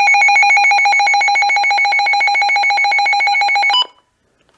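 Midland WR100 weather alert radio sounding its siren test: a loud, rapidly pulsing electronic alarm tone that cuts off suddenly near the end, followed by a few faint clicks.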